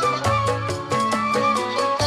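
Gambang kromong ensemble playing an instrumental passage: a sustained, wavering melody line over struck xylophone and gong-chime notes, bass gong tones and drums keeping a steady beat.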